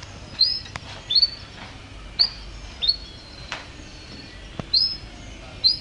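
Canary giving short whistled chirps, each sweeping up and then holding briefly, about six at irregular intervals, with a few sharp clicks between them.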